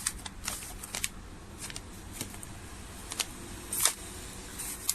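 Packaging and small parts being handled by hand: irregular light clicks and crinkles.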